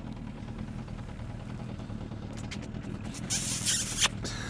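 Engine idling with a low, steady hum. About three seconds in, a short burst of hissing noise ends in a sharp knock.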